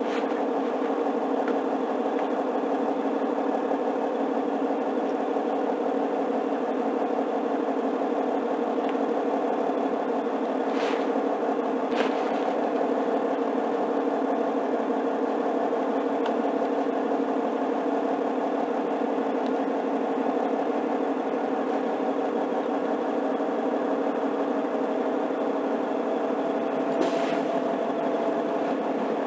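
A diesel semi-truck engine idling steadily, with three brief clicks about 11, 12 and 27 seconds in.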